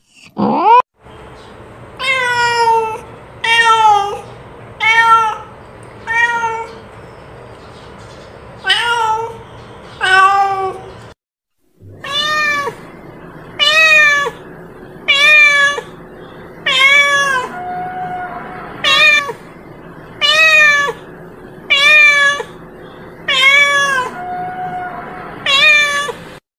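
Domestic cat meowing over and over, short calls about one a second, each rising then dropping in pitch, with a brief break near the middle.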